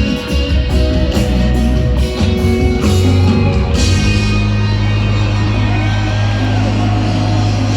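Live reggae band playing, with guitar, bass and singing; the drum hits stop about halfway and a chord is held over a steady bass note.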